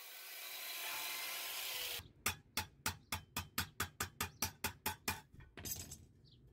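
An angle grinder runs against a piece of sheet metal for about two seconds and cuts off abruptly. Then a small hammer taps the sheet metal about a dozen times, quick and even at about four strikes a second.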